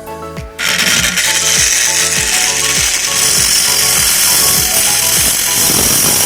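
Homemade angle grinder driven by a car starter motor on a 12 V battery switching on about half a second in and running loudly and steadily with a harsh, hissing mechanical noise. Background music with a beat plays underneath.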